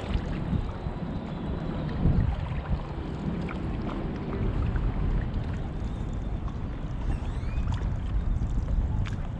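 Wind rumbling steadily on a chest-mounted GoPro's microphone over the wash of water from paddle-boarding, with a few faint small knocks and splashes.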